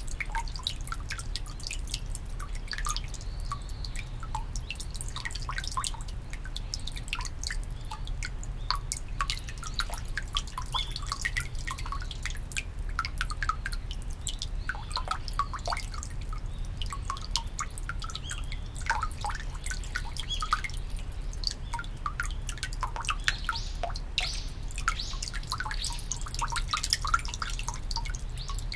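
Water dripping and trickling from a bamboo spout into the stone basin of a Shinto shrine's temizuya (purification font): irregular, quick high plinks of drops hitting the water surface, over a steady low hum.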